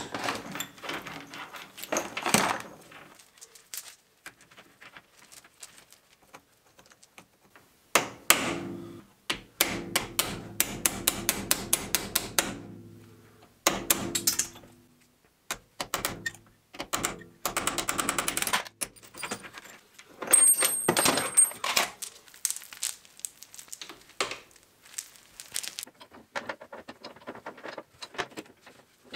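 Hammer striking a pin punch to drive the pins out of a steel roller chain and cut it to length. The blows come in runs of quick metal-on-metal taps, about four a second, with the steel ringing between them.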